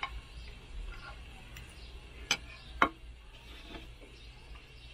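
Eating with a knife and fork: a few sharp clicks of cutlery on the plate, two close together about two and a half seconds in, the second the loudest, amid quiet chewing.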